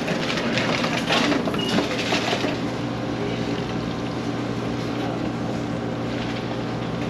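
Touch-screen beverage dispenser running as a plastic jug is filled with drinking water under its nozzle: a steady machine hum with water rushing, and a few light clatters in the first couple of seconds.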